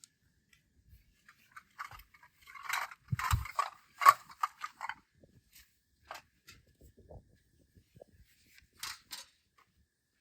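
Camping gear being handled: scattered rustling, clicks and knocks, busiest in the first half, with a sharp knock about four seconds in.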